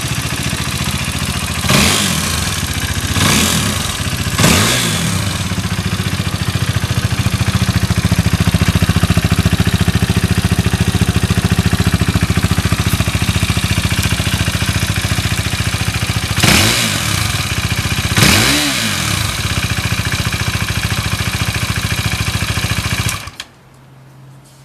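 KTM 390 Duke's single-cylinder engine idling through an Akrapovic silencer, blipped quickly three times in the first few seconds and twice more in the middle, revving up cleanly with no abnormal noises. The engine is switched off and cuts out abruptly near the end.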